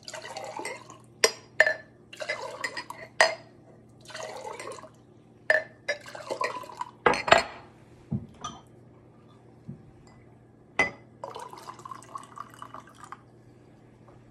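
Liquid poured back and forth between two drinking glasses to mix two solutions, in several short pours with sharp glass clinks between them; the loudest clink comes about seven seconds in.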